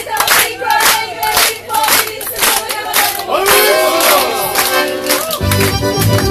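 Rhythmic clapping in time, with folk dancers' shouted whoops and calls. About five seconds in, folk dance music with a strong bass starts up.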